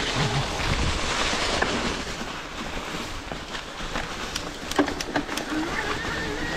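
Greyp G6.3 electric mountain bike riding along a forest trail: a steady rush of tyre and wind noise, with a few sharp knocks and rattles a little past the middle and a thin whining tone coming in near the end.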